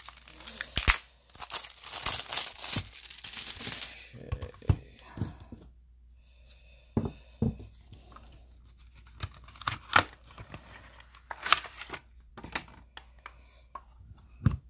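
The sealed wrapping of a cardboard trading-card box being torn and crinkled off for about four seconds. Then come scattered sharp clicks and short rustles as the box is opened and a plastic-encased card is taken out and handled, with one loud click near the end.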